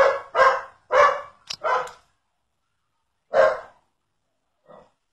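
A dog barking: four quick barks in the first two seconds, another about three and a half seconds in, and a faint one near the end.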